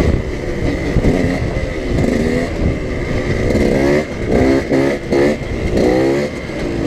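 KTM EXC 125 two-stroke dirt bike engine revving hard under throttle while the bike is held up in a wheelie. In the second half its pitch climbs sharply several times in quick succession.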